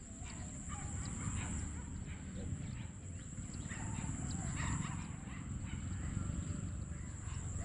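Open-field ambience: a steady low rumble like wind on the microphone, with faint animal calls and scattered light ticks.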